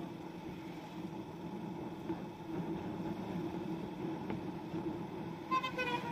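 Motorcycle engine running steadily at cruising speed. About five and a half seconds in there is a brief high-pitched beep, like a vehicle horn.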